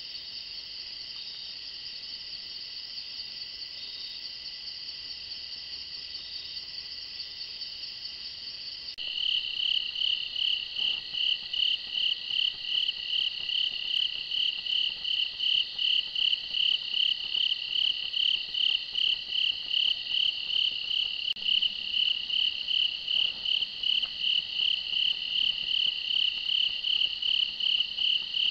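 Night crickets: a steady high trill, then, about a third of the way in, a louder rhythmic chirping of about three chirps a second that keeps on evenly.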